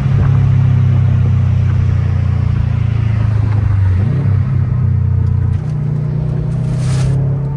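A 2021 Subaru WRX STI's turbocharged 2.5-litre flat-four droning through its Tomei aftermarket exhaust while driving, heard from inside the car. The engine note is steady, with its pitch stepping up near the start and again about four seconds in.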